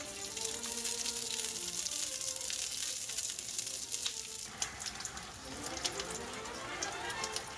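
Kitchen cooking noise under background music: a steady hiss for about the first four and a half seconds, then a softer hiss with scattered clicks and taps.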